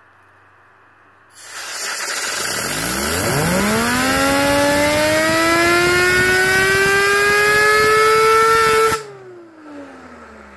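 Compressed-air blow gun hissing against a 3D-printed fidget spinner clamped in a vise, spinning it up: a whine that climbs steeply for a couple of seconds, then keeps rising slowly as the spinner gains speed. The air cuts off suddenly near the end and the whine falls as the spinner coasts down.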